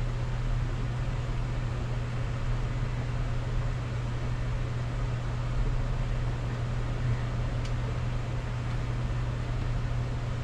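Steady low hum with an even hiss over it: background room noise from a running machine.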